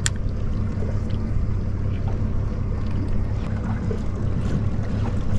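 Steady low rumble and wash of a small boat at sea, wind and water against the hull, with a sharp click right at the start and a few faint ticks after it.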